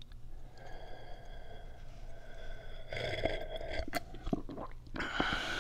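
A man sipping and swallowing tea from a mug, with a few soft clicks of swallowing and a breathy hiss near the end.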